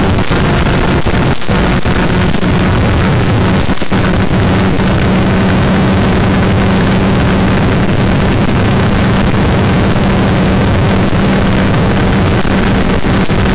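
Kawasaki KRR150's two-stroke single-cylinder engine running hard at steady high revs at speed. Heavy wind rush on the microphone lies over it, with two brief dips in the sound in the first few seconds.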